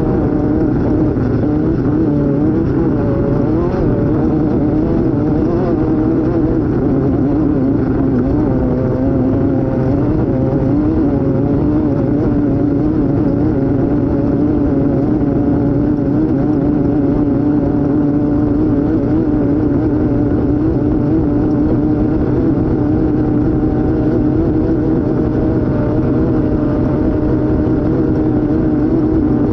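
Off-road race vehicle's engine running hard at speed, heard on board. Its note wavers up and down for roughly the first ten seconds, then holds steady, over a dense low rumble.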